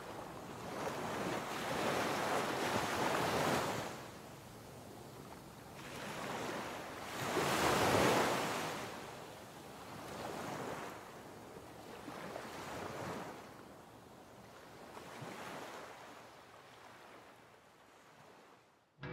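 Waves washing onto a shore in a series of swells, the loudest about eight seconds in, with some wind. The sound fades out near the end.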